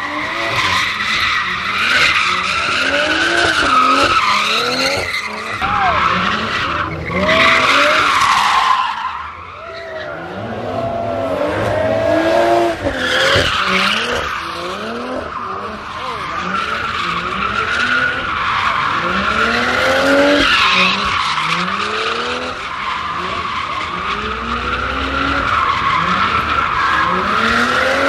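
BMW 3 Series sedan drifting on a skid pad: the engine revs up and down again and again while the rear tyres spin and squeal. It eases off briefly about a third of the way in.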